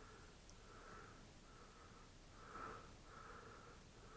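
Faint breathing close to the microphone, a run of soft, slightly whistling breaths about one a second.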